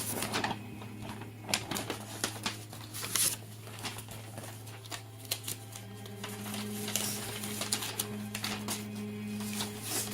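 Irregular clicks and taps of objects being handled, over a steady low hum; a second, higher hum tone joins about six seconds in.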